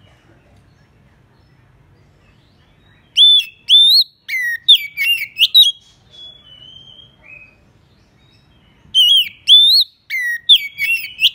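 Oriental magpie-robin singing: a burst of loud whistled phrases with sweeping, rising and falling notes about three seconds in, softer notes after it, and another loud burst near the end. It is territorial song, calling out to a rival.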